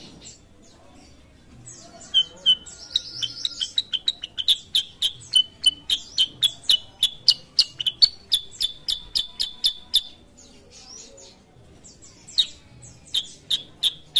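Black-headed bulbul (kutilang sutra) singing: a fast run of sharp, repeated chirps, about four a second. The chirps start about two seconds in, break off around ten seconds, and pick up again about two seconds later.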